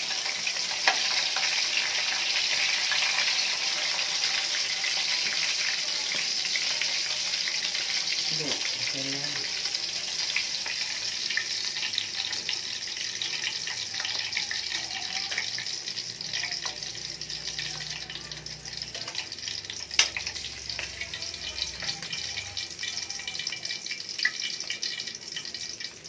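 Fish frying in hot oil in a wok: a steady sizzle with crackling that thins out over the second half as pieces are lifted from the oil. Metal ladle scraping in the wok, with one sharp click about twenty seconds in.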